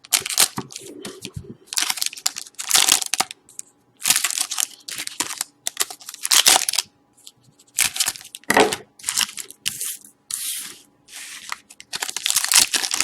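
2012-13 Panini Certified hockey card packs being torn open and their wrappers crinkled by hand: a run of short ripping and rustling bursts with brief gaps between them.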